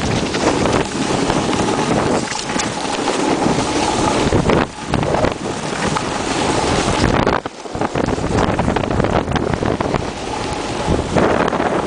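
Wind buffeting the microphone over the hiss and scrape of a snowboard sliding across packed snow, with two short dips in the rush partway through.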